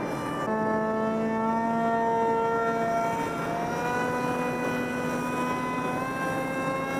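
Radio-controlled model Alpha Jet flying past with its engine whining steadily in several tones. The pitch drops about half a second in and climbs again later as the engine's speed or the jet's distance changes.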